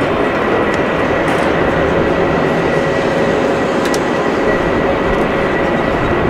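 Airbus A350-1000's twin Rolls-Royce Trent XWB turbofans passing low with the gear down. It is a steady, loud jet rumble with a faint even whine running through it.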